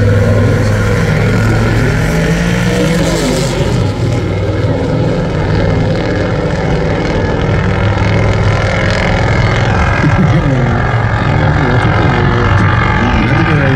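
Drag cars Il Tempo Gigante and Lillegul running at full throttle down the strip, a loud, steady engine noise. It sounds sharper in the first few seconds and duller once the cars are far down the track.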